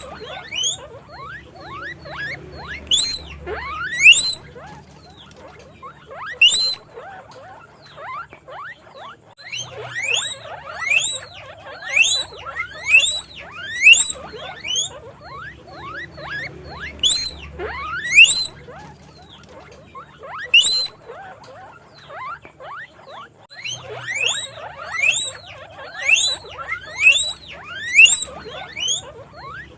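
Guinea pig squeaking: loud, sharply rising whistle-like calls, about one a second, coming in bouts with short pauses between them.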